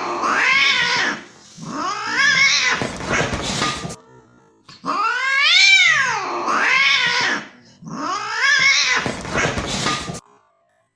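Cat meowing loudly: about five long, drawn-out yowls, each rising and then falling in pitch.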